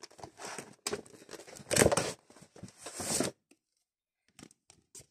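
Trading-card packaging being handled: cardboard, paper inserts and foil card packs rustling and scraping in irregular bursts, loudest about two seconds in, stopping after about three seconds, followed by a few faint clicks.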